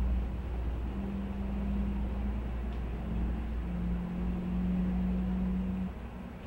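Steady low background rumble with a steady humming tone that sets in about a second in and stops shortly before the end.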